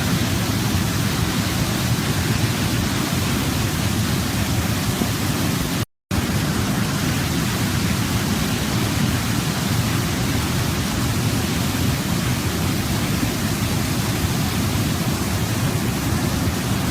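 Waterfall: a steady, dense rush of falling water, heaviest in the low range. The sound cuts out completely for a split second about six seconds in, then resumes unchanged.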